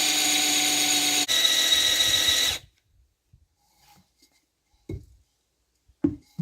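Electric drill boring a drainage hole in a ceramic flower pot, the motor running at a steady pitch with a grinding hiss. It dips for an instant about a second in and stops at about two and a half seconds, followed by a few light knocks.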